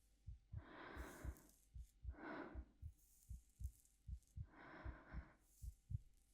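Heartbeat thumping softly and steadily in lub-dub pairs, a little over one beat a second, with a woman's slow, soft breaths close to the microphone, three of them: a long one about half a second in, one around two seconds in, one near four and a half seconds.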